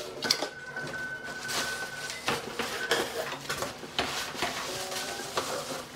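Cardboard scraping, rubbing and knocking as a flat-packed folding table box is slid out of a cardboard shipping carton, in a string of short handling noises.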